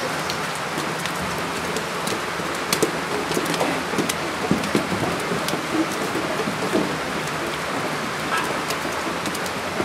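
Goats' hooves knocking and clattering on a wooden plank ramp as a herd walks down it, over a steady hiss.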